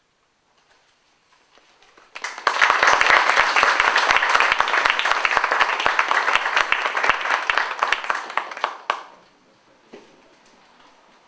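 Audience applauding: clapping breaks out about two seconds in, holds dense and even, and dies away near the end.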